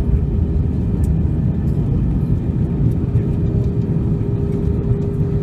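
Airbus A320 cabin noise while the airliner rolls along the runway after landing: a steady, loud rumble of the engines and the wheels on the runway, heard from inside the cabin over the wing. A steady hum comes up clearer about halfway through.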